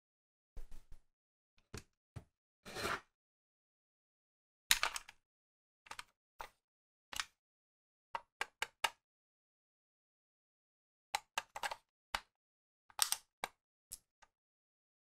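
Hard plastic DX Desire Driver toy belt buckle handled in the hands: scattered clicks, taps and knocks of its plastic parts, some in quick runs of three or four.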